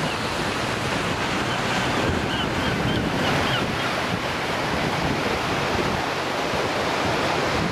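Steady rushing of the Watchet River's flowing water, mixed with wind buffeting the microphone.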